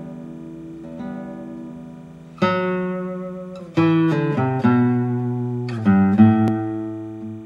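Slow soundtrack music on a plucked string instrument: ringing notes and chords, each left to fade. A new chord comes in about two and a half seconds in, a quick run of notes follows near four seconds, and another chord comes in around six seconds before the sound dies away at the end.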